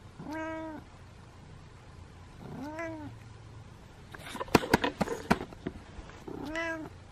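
A kitten meowing three times, each a short call that rises and falls, the calls spread a few seconds apart. Between the second and third meows comes a brief cluster of sharp clicks and rustling, the loudest sounds here.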